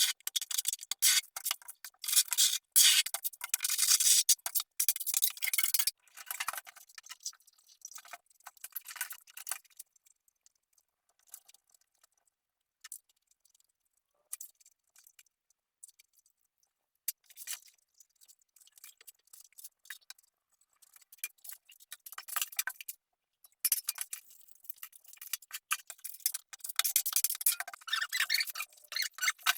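Tiling work: scraping and rubbing of tools on tile with small clinks and ticks, busy for the first few seconds, sparse and quiet through the middle, and busy again near the end.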